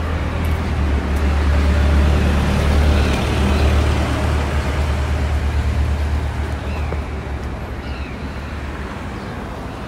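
Road traffic passing on a city street: cars and small trucks driving by with a low engine and tyre rumble, loudest in the first few seconds and easing off toward the end.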